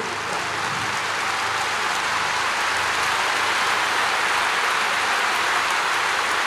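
Large stadium crowd applauding, a dense even clatter that swells over the first second or so, then holds steady.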